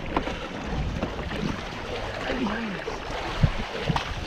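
Kayak paddle strokes splashing in calm sea water, with wind buffeting the microphone. Two sharper hits come near the end.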